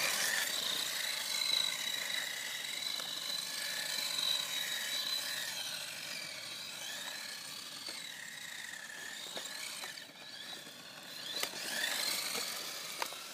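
LaTrax Rally RC car's electric motor and geared drivetrain whining, the pitch rising and falling several times with the throttle as the car drifts. Its tape-wrapped tyres make a hiss as they slide over the gravelly asphalt.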